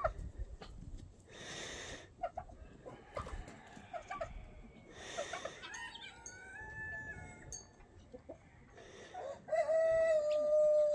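Rooster crowing: short clucking calls early on, a held call about six seconds in, and a longer, louder crow near the end.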